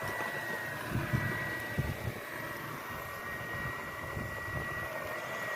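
Radio-controlled construction model's electric drive whining as one steady high tone, over uneven low rumbling.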